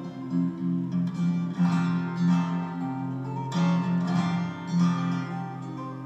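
Solo acoustic guitar played fingerstyle: held bass notes under a plucked melody, with a few sharp accented chords.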